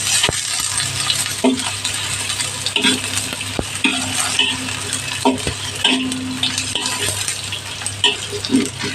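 Chopped onion frying in hot cooking oil in a pan, sizzling while a utensil stirs it, with scraping strokes about once a second and a couple of sharp knocks against the pan.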